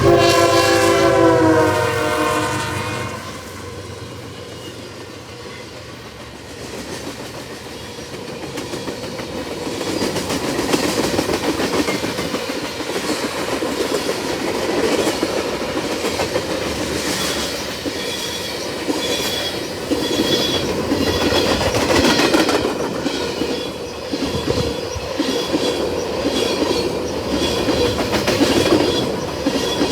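Freight train's locomotive horn sounding a chord that dips slightly in pitch and stops about three seconds in. Then the freight train rolls past with steady wheel clatter on the rails, and a faint high whine comes and goes in the second half.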